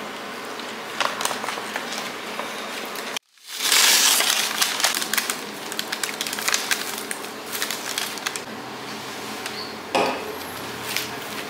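Paper burger wrappers and napkins crinkling and being crumpled by hand, with small clicks and taps on the table. The sound drops out for a moment about three seconds in, and the crinkling is loudest just after.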